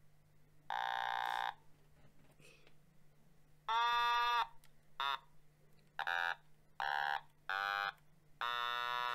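Otamatone, a handheld electronic note-playing toy instrument, sounding about seven separate short notes at different pitches with its mouth squeezed open. The longest and loudest note comes about four seconds in, and a very short one about a second later.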